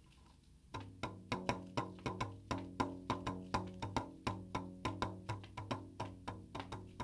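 Fingers tapping the balloon membrane stretched over a soprano saxophone's bell, making quick drum-like beats at about four a second over a steady low tone. The taps start about three-quarters of a second in.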